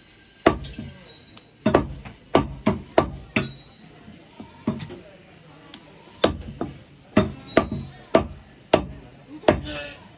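Butcher's cleaver chopping mutton on a wooden chopping block: a quick, irregular series of sharp knocks, with short pauses between runs of blows.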